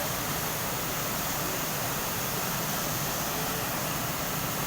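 Floodwater rushing, a steady even noise.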